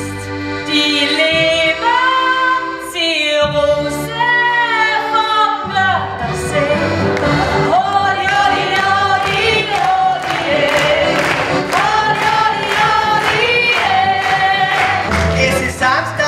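Music with singing voices. For the first few seconds the voices are held over sparse accompaniment; about six seconds in, a band with a steady drum beat comes in under the singing.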